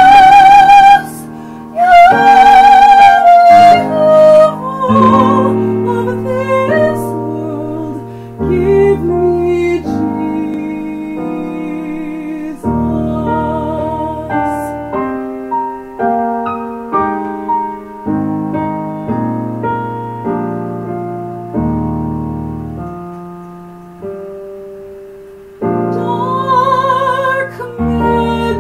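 Female classical (soprano-style) voice singing with a wide vibrato over piano accompaniment, then a long solo piano passage of held, fading notes and chords; the voice comes back in near the end.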